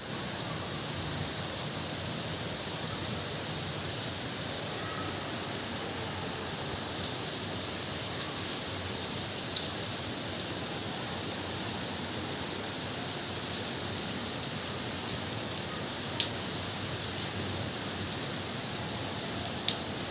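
Steady monsoon rain falling, an even hiss with a few sharp ticks of single drops striking close by.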